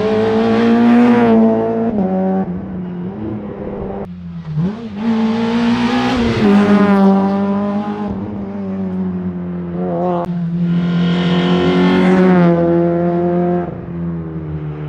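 Rally car engine revving hard on a special stage, its pitch climbing and then dropping back several times as it shifts or lifts between bursts of acceleration.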